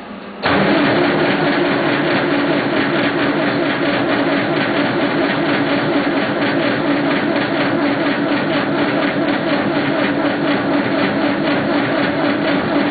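Massey Ferguson 50D backhoe's engine being cranked over by its starter on a cold start. A loud, steady, pulsing crank begins suddenly about half a second in and keeps going without the engine catching: a failed cold start.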